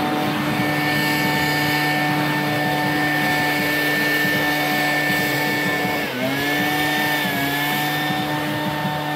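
Backpack leaf blower running at a steady high speed. Its pitch dips briefly about six seconds in and again a second later, then steadies.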